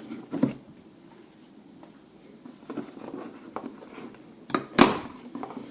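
Handling sounds of the packaging and tool: light clicks and rustling, with a louder rustle or scrape about four and a half seconds in.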